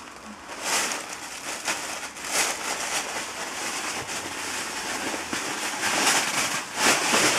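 White plastic packaging bag around a garment crinkling and rustling as it is handled and opened, in irregular loud bursts.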